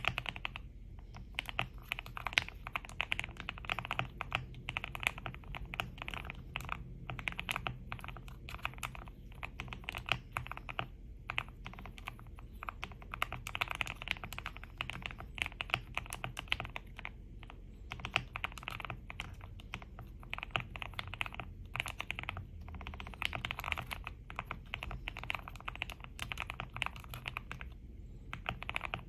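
Typing on a QK65 custom mechanical keyboard with a POM plate, lubed Gateron CJ linear switches and GMK Botanical clone keycaps. The keystrokes come in a fast, dense stream with a few brief pauses.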